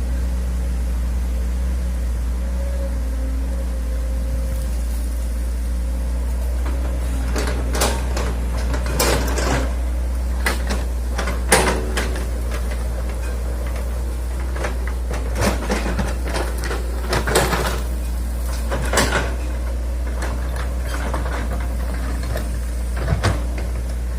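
Hitachi hydraulic excavator's diesel engine running at a steady low drone, with short knocks and scrapes every second or two from about a third of the way in as the machine works.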